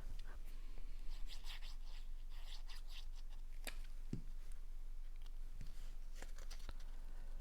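Cardstock pieces being handled and slid into place on a paper card: soft rustling and scraping, a sharp click a little over halfway through followed by a light tap, then a few more faint scrapes.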